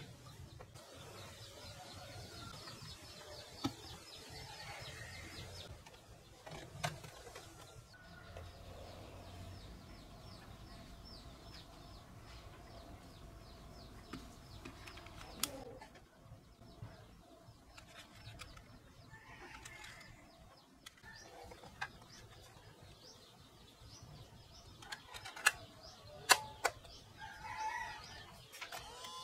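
Sharp hard-plastic clicks and knocks from a Mini DV tape rewinder and tape cassettes being handled, the two loudest close together near the end, over a faint, rapid high chirping in the first part.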